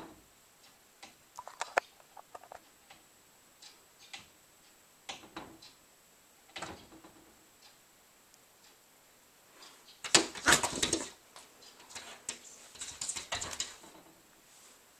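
Cats pawing and batting at a sliding glass door through the glass: scattered light taps and clicks of paws on the pane, then a loud flurry of scrabbling and thumping against the glass and door frame about ten seconds in, and a second, shorter flurry a couple of seconds later.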